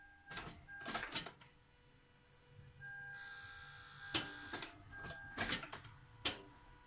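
Sharp clicks from the engine bay of a Toyota Camry with a discharged battery as the key is turned, the engine not cranking, with a faint steady tone that stops and starts between them. The battery voltage sags under each attempt: the earlier reading was only a surface charge.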